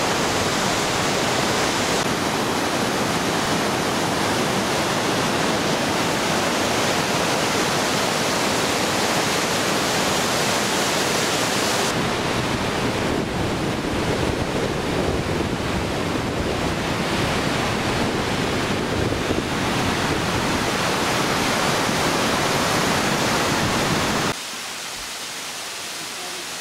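Steady loud rush of whitewater in a mountain river's rapids. Near the end it drops suddenly to a quieter rush of water.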